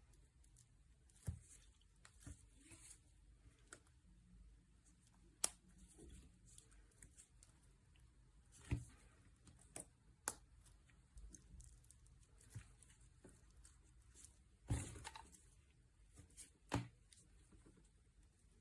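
Faint, scattered soft squishes and sharp little clicks, about half a dozen spread irregularly, from a squishy stress-relief toy being squeezed and handled.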